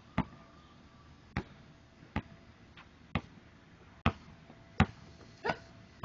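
Basketball bouncing on a concrete driveway, a series of sharp single bounces about once a second.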